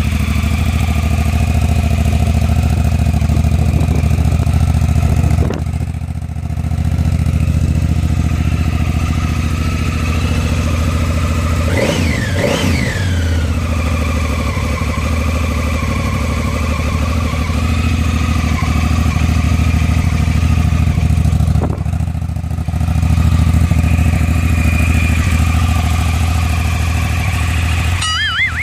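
Honda Africa Twin's 998 cc parallel-twin engine idling steadily just after starting, with one short blip of the throttle about twelve seconds in, the revs rising and falling back to idle.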